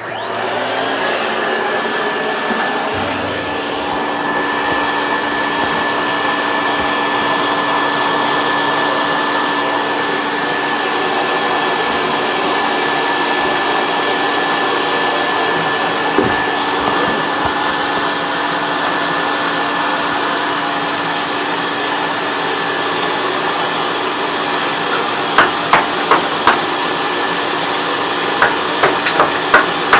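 Vacuum motor spinning up at the start and then running steadily with a high whine. Near the end come two clusters of sharp knocks, several in quick succession.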